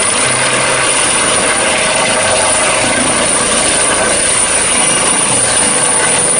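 Helicopter sound: steady rotor and engine noise with a thin, high whine.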